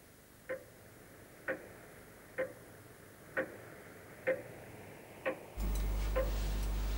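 A clock ticking slowly and evenly, about once a second. A low steady hum comes in near the end.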